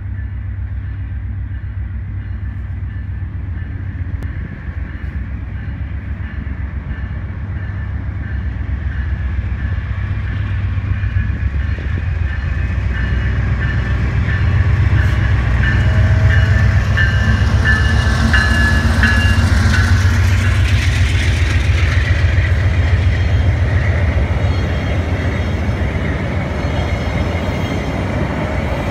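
VIA Rail passenger train: a diesel locomotive's low drone growing louder as it approaches and passes close by, then the coaches rolling along the rails. A high squeal sounds over it as the locomotive goes by.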